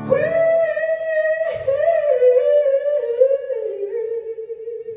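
Fiddle playing a slow solo phrase almost alone, one bowed line with slides and bends that drifts down in pitch and fades out near the end.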